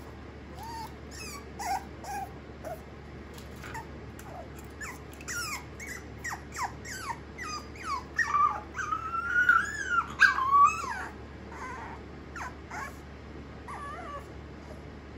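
Black mame-shiba puppy whining in many short, high, falling cries. The cries build to longer, louder whines about halfway through, then thin out toward the end. It is a restless puppy crying in its pen.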